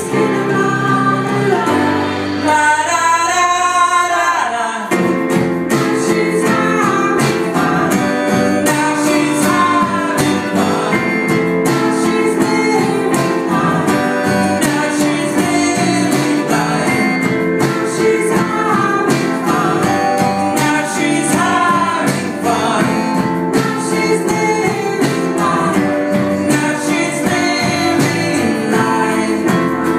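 Live indie folk band performing: voices singing over acoustic guitar and electric bass. About two seconds in the bass drops out under a wavering held note, and the full band comes back in about five seconds in.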